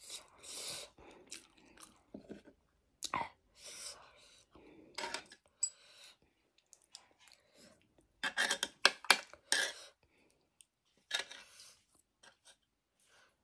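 Close-miked mouth sounds of someone eating ramen noodles and sausage: irregular bursts of chewing with short pauses between them, thickest about eight to ten seconds in.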